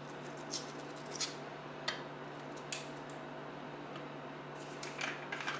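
Foil wrapper of a beef bouillon cube crinkling in short, sharp rustles, about four separate crinkles as it is unwrapped, then a quick cluster of rustles and clicks near the end as a small spice jar is handled. A steady low hum runs underneath.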